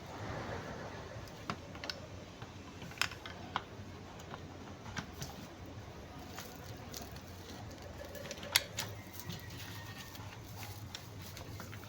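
Scattered light clicks and taps of hand tools and metal alternator parts being handled during reassembly, one sharper click about two-thirds of the way through, over a low steady hum.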